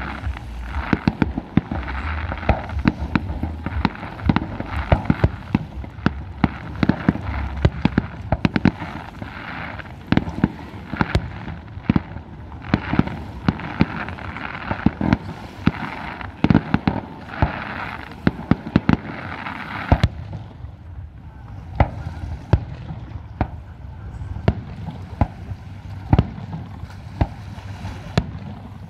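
Fireworks display: aerial shells bursting in a rapid, irregular string of bangs and pops, several a second. The bangs grow sparser for the last several seconds.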